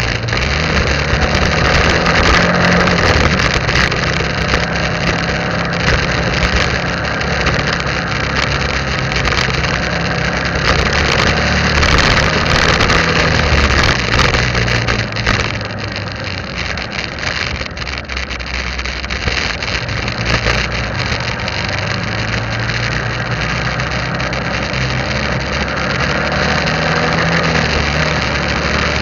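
Motorbike engine running steadily while riding, with wind and road noise rushing over it; a few seconds past the middle the engine note eases off and gets quieter, then picks up again.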